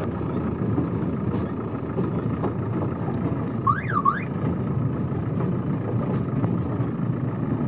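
A converted van running on steel wheels as a rail draisine, heard from inside the cab: a steady low engine and running noise as it moves slowly along the track. A little before the middle comes a brief high squeal that rises and falls twice.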